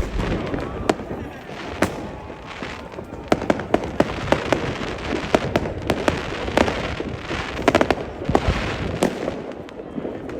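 New Year's fireworks going off, many sharp bangs and cracks in quick, irregular succession.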